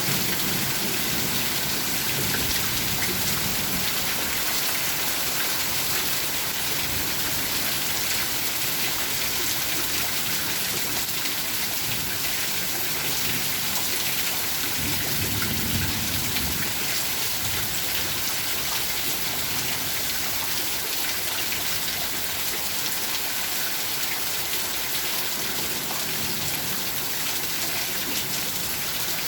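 Steady heavy rain falling, a constant hiss with many individual drops pattering on surfaces.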